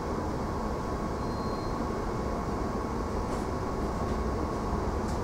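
Steady rumble and rush of a moving suburban passenger train, heard from inside the carriage, with a faint steady high tone that fades out near the end.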